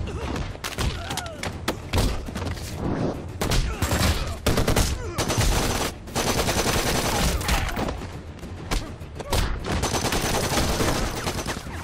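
Rapid gunfire from several police rifles: volleys of shots in quick runs broken by short pauses, with the densest run about six to eight seconds in.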